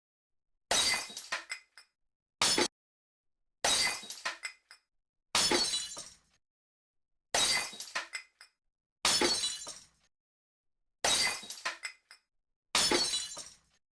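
Glass smashing eight times, about every one and a half to two seconds. Each smash is a sharp crash followed by shards tinkling away over about a second, and the gaps between them are dead silent. One smash, about two and a half seconds in, is cut off short.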